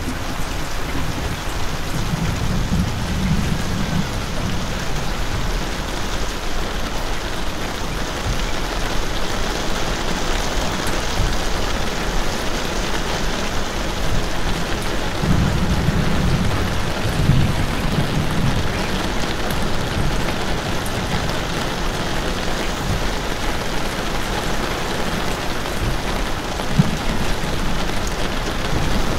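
Steady rain falling and splashing on hard surfaces. A low rumble swells twice under it, about two seconds in and again around fifteen seconds in.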